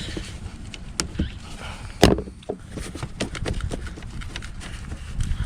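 Scattered clicks and knocks of hands fitting plastic trim parts at the front of a car, with one sharp knock about two seconds in, over a low steady rumble.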